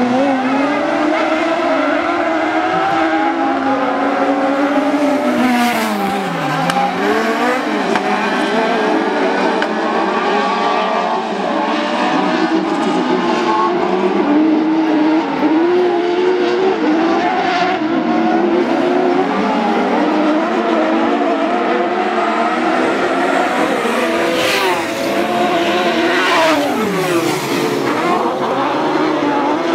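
Several 1600 cc autocross buggies racing on a dirt track, engines running at high revs with overlapping notes that climb and fall as they accelerate, shift and lift off. Twice the pitch swoops down sharply as a buggy goes past.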